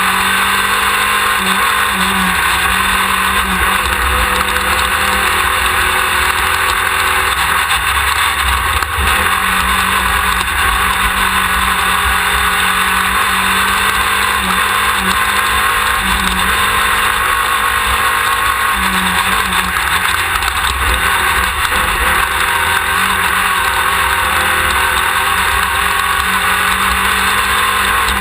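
A Class 1600 off-road race car's air-cooled 1600 cc VW engine running at speed, steady and loud over a thick, even noise.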